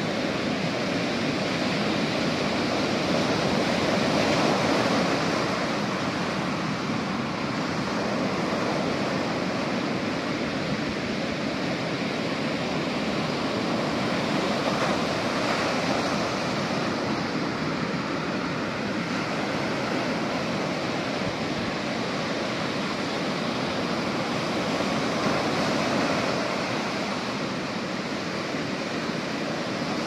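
Ocean surf breaking and washing onto a beach, a steady rushing that swells gently a few times as waves come in.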